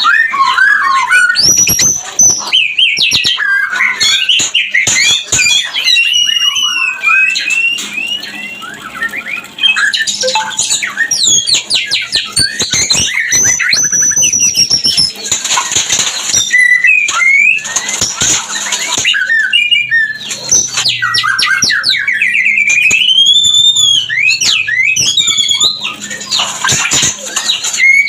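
White-rumped shama in breeding condition singing without a break: rapid, varied whistled phrases that glide up and down, mixed with harsh, scratchy rattles and chatter.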